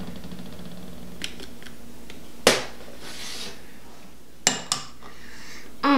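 Spatula scraping and knocking against a small glass cup: a few light clicks, a sharp knock about two and a half seconds in, and two more knocks about two seconds later.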